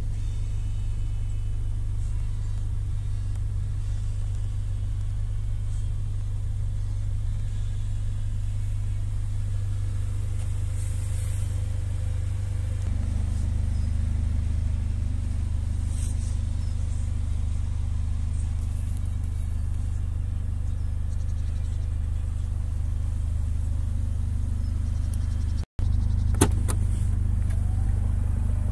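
Mercedes-AMG GLA 45's turbocharged four-cylinder engine idling, a steady low rumble. A few sharp clicks come about two seconds before the end.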